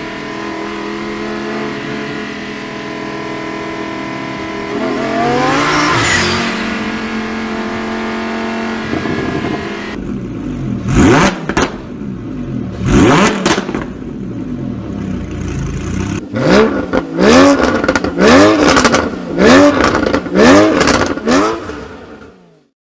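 A performance car's engine and exhaust: a steady run with one rev about six seconds in, then, after a cut, sharp throttle blips, a quick series of about six near the end, each with cracks and pops from the exhaust as the revs fall.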